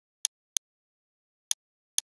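Four sharp computer mouse clicks: two in quick succession in the first half-second, then two more about a second later, about half a second apart.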